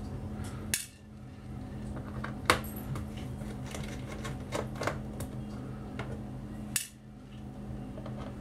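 Hands handling a laptop and small tools on a work mat: three sharp clicks spread through, with fainter ticks between, over a steady low hum.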